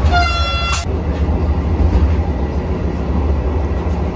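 Running noise of the Vande Bharat Express electric train set heard from on board at speed: a steady low rumble under an even roar. In the first second a short high tone sounds and cuts off abruptly.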